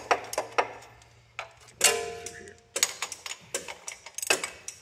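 A hand wrench clicking and clinking on metal in short runs of sharp clicks as an injector hold-down nut is tightened toward torque. There is a brief metallic ring about two seconds in.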